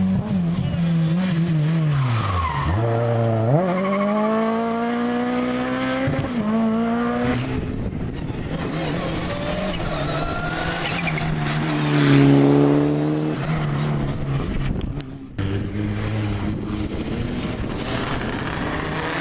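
Rally car engines at speed. One engine's pitch dives as it brakes, then climbs again through several upshifts, and another engine runs hard about twelve seconds in, with the noise of tyres sliding on the loose surface. The sound breaks off abruptly about fifteen seconds in.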